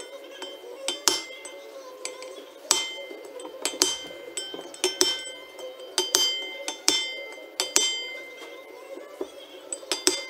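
Hammer striking metal on a John Deere 4755 tractor's wheel hub, about a dozen irregular blows, each with a short metallic ring.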